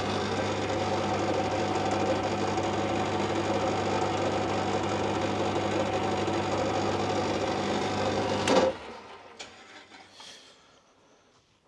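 Small metal lathe running with its chuck spinning a silver steel rod while a tailstock-held drill bores into the rod's centre: a steady motor hum with a hiss of cutting over it. About eight and a half seconds in, a click as it is switched off, and the machine winds down to quiet.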